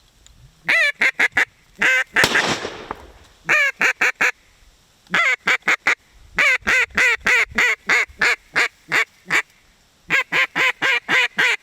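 Mallard duck call blown in runs of quick quacks, each note dropping in pitch, in several sequences with short gaps; one long string of quacks runs through the middle. A brief rush of noise about two seconds in.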